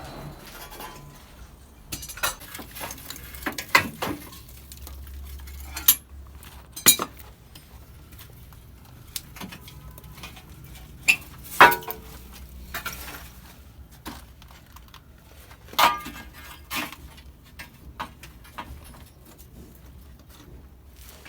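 Scattered sharp metallic clinks and knocks from plumbing work on old galvanised iron pipes, a dozen or so separate strikes at irregular intervals.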